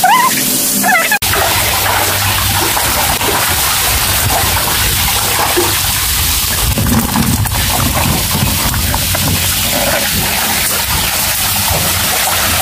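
Water splashing and sloshing as catfish are netted out of the shallow water in a drained concrete tank, water streaming off the lifted net.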